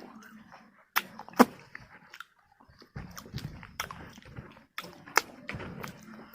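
Chewing crispy fried chicken pakora: sharp crunches now and then, with softer mouth sounds between.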